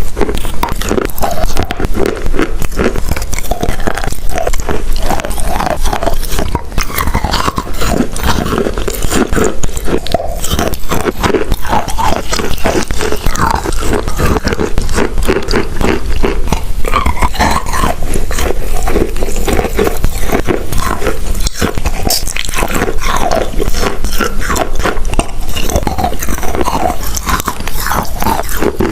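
A person biting and chewing chalk, a steady run of crisp crunches with no pauses.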